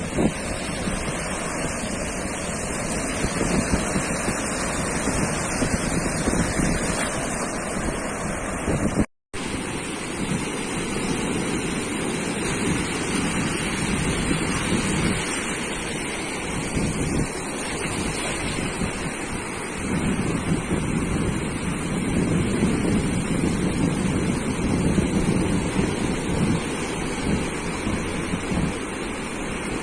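Ocean surf washing steadily onto a sandy beach, with wind buffeting the microphone. The sound cuts out completely for a split second about nine seconds in.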